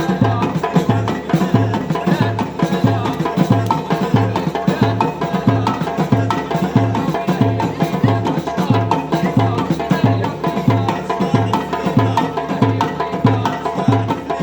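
Traditional Moroccan band music played live: a steady low bass pulse repeating under twice a second beneath dense, fast clacking percussion.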